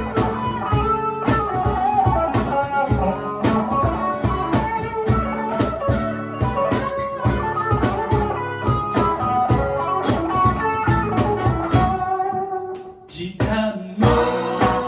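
A band playing live, with a steady beat. Near the end the music briefly drops away, then the band comes back in.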